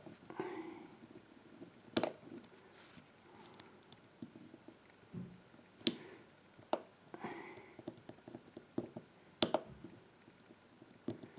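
Small sharp metal clicks, several spread out, with faint scraping between them: a screwdriver working a tight screw loose on a KIK pin-tumbler lock cylinder.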